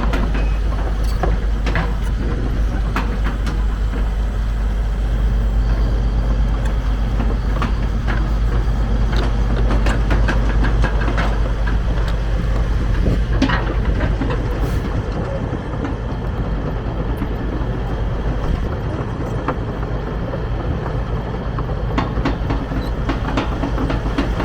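Isuzu inline four-cylinder diesel engine of a Link-Belt 145X3 excavator running steadily, with frequent metallic clanks and knocks over the top. The low engine note grows stronger about five seconds in and eases slightly past the halfway point.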